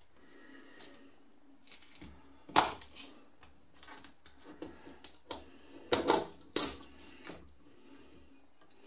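Small screwdriver and the metal and plastic parts of an airsoft AK electric gun's gearbox clicking and knocking irregularly as the shell screws are undone and the gearbox half is lifted off. Sharper knocks come about two and a half seconds in and again around six seconds in.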